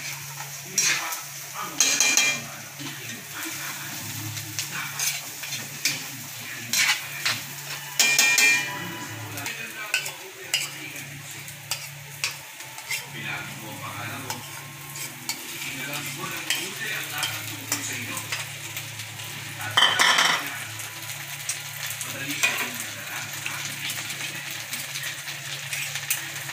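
Tofu cubes sizzling as they fry in a metal wok, with a metal spoon scraping and clinking against the pan as they are stirred. A few louder clatters of the spoon come about two, eight and twenty seconds in.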